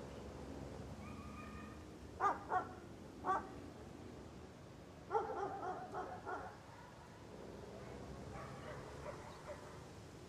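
Young Indian puppy yelping in short high yaps: a pair a little over 2 seconds in, another about a second later, then a quick run of several around the middle, with fainter whining calls near the end.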